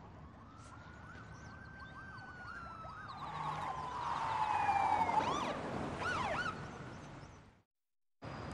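Police car sirens: a slow wail rising and falling, overlapped by quick yelping sweeps. They grow louder to a peak about five seconds in, then fade and cut off abruptly near the end.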